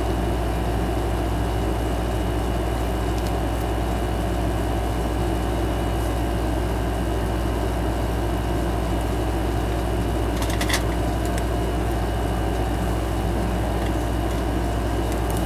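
Steady mechanical hum with a hiss over it, even in level throughout, and a brief click about ten and a half seconds in.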